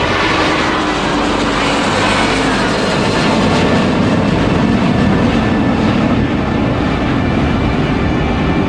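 Boeing 757-200's twin Rolls-Royce RB211 turbofan engines at climb thrust: a loud, steady jet roar as the airliner climbs away after takeoff.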